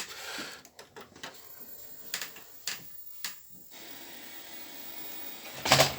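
Clicks and knocks from handling a Commodore 64's plastic case and keyboard, several sharp taps in the first few seconds. About two-thirds of the way in, a faint steady hiss begins, and a louder knock comes near the end.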